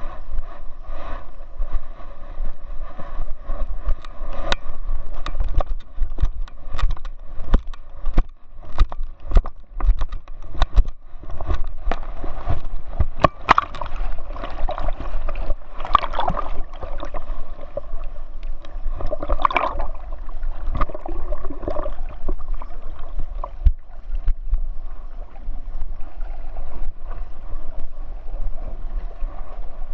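Water splashing and sloshing right at a camera strapped to a swimming chocolate Labrador. Frequent sharp knocks on the camera run through the first half, and the splashing is louder about halfway through.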